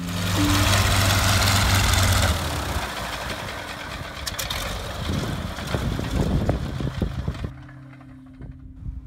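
Stearman PT-13 biplane's radial engine running, then being shut down: the sound drops after about two seconds into uneven, spaced-out firing pulses, and the engine stops about 7.5 seconds in as the propeller winds down.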